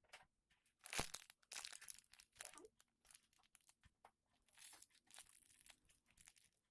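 Faint plastic packaging crinkling and crackling as it is handled, in irregular spells, with the loudest crackle about a second in.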